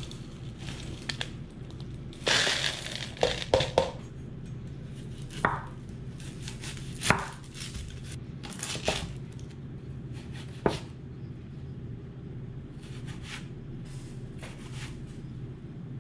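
Plastic bag of frozen vegetables crinkling as it is handled, then a chef's knife cutting an onion on a wooden cutting board: four separate sharp knocks of the blade meeting the board, spaced a second or two apart, followed by faint rustling of dry onion skin. A steady low hum sits underneath throughout.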